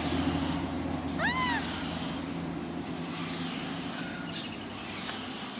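A baby macaque gives one short squeak that rises and falls in pitch, about a second in, over a steady low motor hum that partly fades out about two seconds in.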